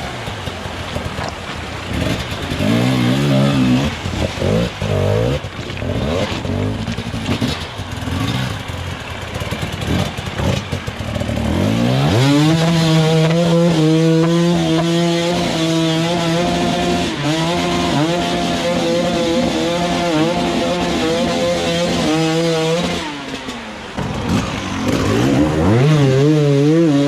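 Enduro dirt bike engine revving in short irregular blips. About eleven seconds in it climbs to high revs and holds steady for about ten seconds before dropping off, then revs in bursts again near the end.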